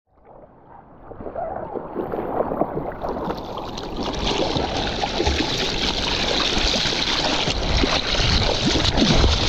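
Water rushing and splashing close to the camera in the surf, a steady noisy wash with many small crackles that builds up over the first second or two.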